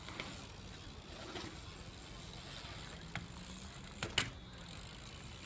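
BMX bike riding on a concrete skatepark: a low steady background of tyre rolling and outdoor noise, with a few short sharp clacks of the bike against the concrete, the loudest a double knock about four seconds in.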